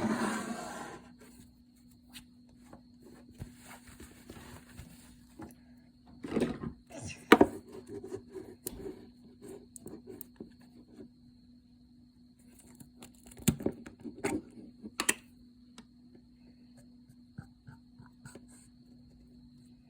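Slime being squeezed and poked by hand: scattered sticky clicks and squishes, with clusters about six to seven seconds in and again around thirteen to fifteen seconds, over a steady low hum.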